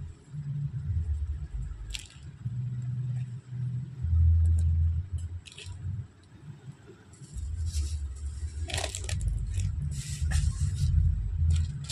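Low, uneven rumble buffeting the microphone, with crackling and crinkling of a packet being handled in the second half.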